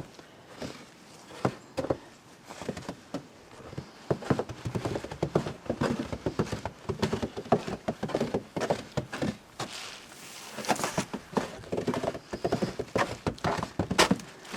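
Footsteps crunching in snow with rustling, a run of irregular crunches and crackles that gets busier about four seconds in.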